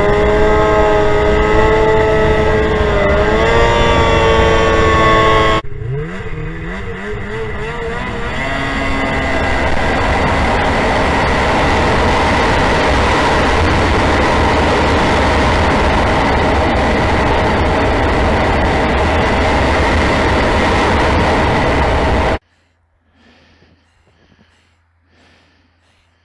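Snowmobile engine running under way, its pitch dipping and rising about three seconds in. After a cut about five seconds in it returns quieter, builds up and runs steadily at speed with a rushing noise, then cuts off suddenly near the end, leaving only faint sounds.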